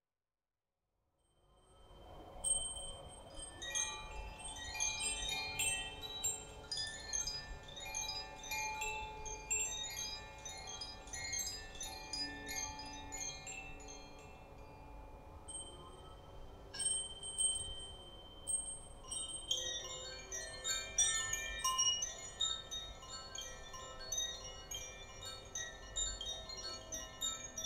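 Chime sounds: many short, high, bell-like tinkles scattered densely over soft sustained lower tones, some of which bend slowly in pitch. They fade in from silence about a second and a half in.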